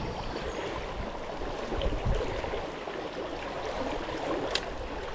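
Shallow river running fast over a stony bed: a steady rush of water, with one sharp click about four and a half seconds in.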